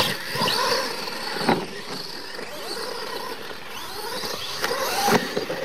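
Radio-controlled monster trucks racing on a dirt track: motors whining up and down over tyre and dirt noise. There are two sharp thumps, about a second and a half in and near the end, as trucks land off jumps.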